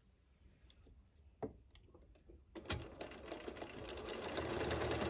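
A few faint clicks, then an electric sewing machine starts up a little past halfway and runs steadily, stitching a narrow straight-stitch seam in fabric.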